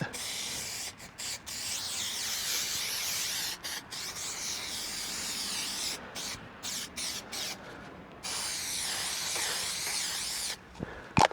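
Aerosol can of spray adhesive hissing in several long bursts of about two seconds each, with short breaks and a few quick spurts between them.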